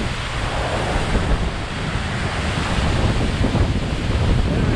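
Waterfall rushing steadily, with wind buffeting the microphone.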